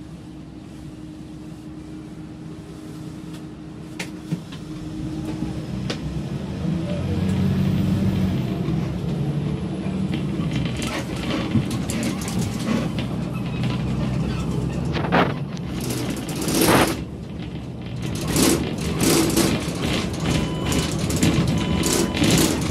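Engine and road noise heard from inside a moving vehicle's cab, the engine growing louder about five seconds in as it pulls away. In the last third there are loud, irregular bursts of rushing noise.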